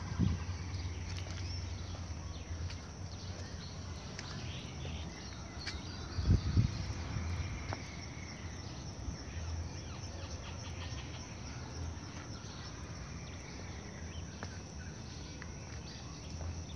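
Outdoor woodland ambience: faint birds and insects chirping over a steady low rumble, with a short thump right at the start and a louder one about six seconds in.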